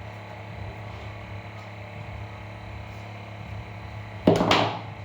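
Steady low electrical hum, then about four seconds in a sudden, loud half-second rip as the Apple Watch box's packaging is torn open.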